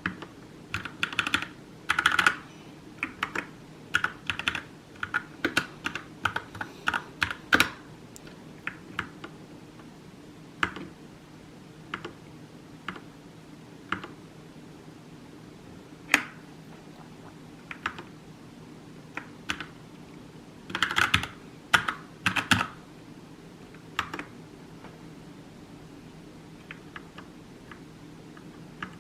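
Gaming keyboard with red linear mechanical switches being typed on. Quick runs of keystrokes come in the first eight seconds and again about three-quarters of the way through, with single scattered presses between and fewer toward the end. A faint steady hum lies underneath.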